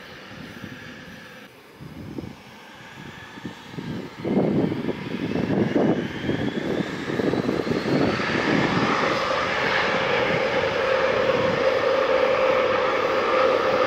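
Aircraft engines growing steadily louder, with a high whine that rises in pitch over several seconds.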